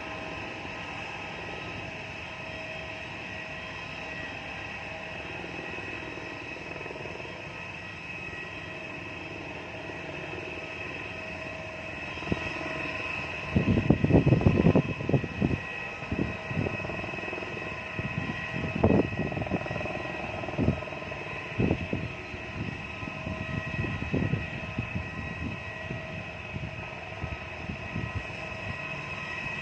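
AS355 twin-turbine helicopter running with a steady high turbine whine. From about halfway, irregular low rumbling gusts of wind buffet the microphone, loudest just after the midpoint.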